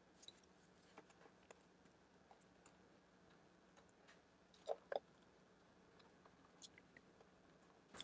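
Near silence broken by scattered faint clicks and ticks, the loudest a quick pair about four and a half seconds in: a precision screwdriver and small screws against a MacBook Pro's aluminium bottom case as the case screws are driven in.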